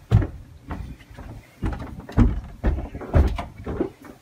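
Footsteps of a person climbing an indoor staircase, one heavy step about every half second.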